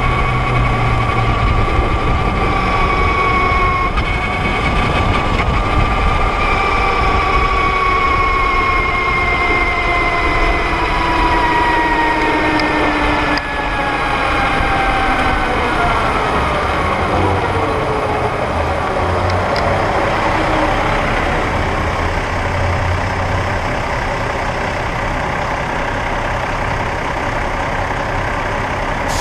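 Brammo Empulse R electric motorcycle's drive whining, its pitch sliding steadily down as the bike slows to a stop, over steady wind and road noise.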